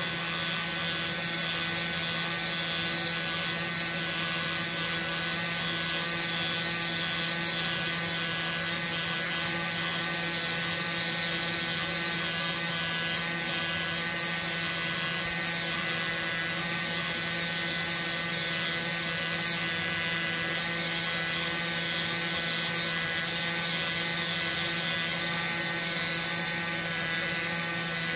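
Pneumatic air scribe (air pen) buzzing steadily as its tip chips away the rock matrix around a fossil ammonite.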